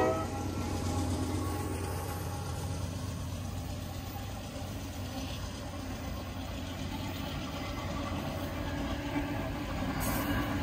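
Norfolk Southern diesel freight locomotives passing at close range, their engines running with a steady low rumble. The horn cuts off at the very start, and the rumble grows louder near the end as further units come by.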